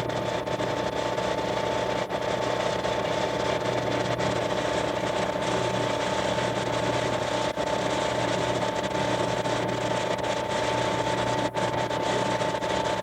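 A small machine running steadily, a constant hum with a high whine held on one pitch, and a few faint clicks.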